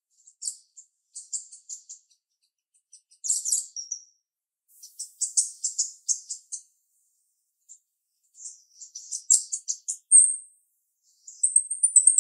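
Female jalak rio-rio (a myna) singing in sharp, high-pitched bursts of chirps and chattering notes, separated by short pauses. A brief clear whistle comes about ten seconds in, then a denser run of notes near the end.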